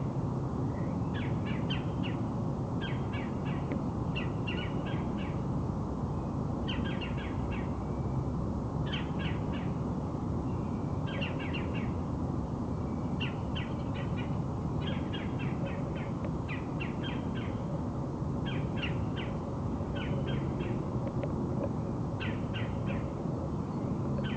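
Birds calling: short, rapid series of clicky notes repeated every second or two, over a steady low rumble of background noise.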